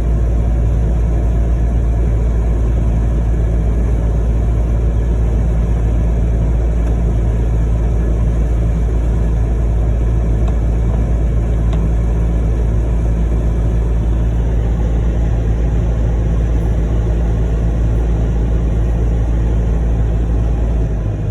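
Steady low drone of a motor vehicle being driven: engine and tyre noise at an even pace.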